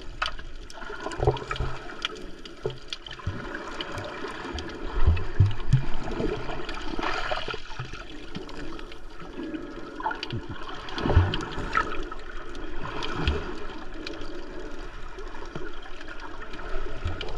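Seawater sloshing and gurgling, with several short low thumps at uneven intervals.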